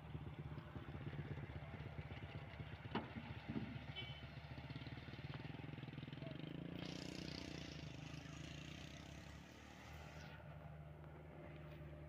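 Diesel engine of a Cat 305.5E2 mini excavator running steadily as it digs and dumps soil, with two sharp knocks about three seconds in and a hiss from about seven to ten seconds in.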